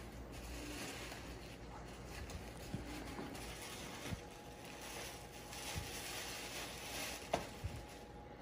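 Tissue paper rustling and crinkling as it is pulled out of a paper gift bag in handfuls, with a couple of light taps, the sharpest near the end.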